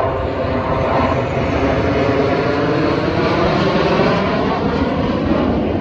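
Jet engines of a formation of military fighter jets flying overhead: a loud, steady roar.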